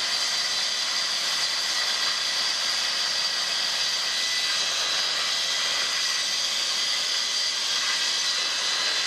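Plunge-cut track saw running steadily as it is pushed along its guide rail, cutting through a sheet of plywood, with dust extraction drawing through the hose on the saw. A loud, even high whine with no change in pitch.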